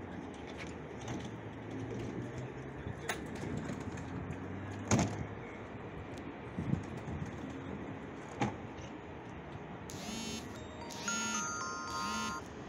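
CTrain light-rail cars standing at the platform with a steady electrical hum and a few sharp clicks. Near the end come three short bursts of electronic door-warning tones as the doors close.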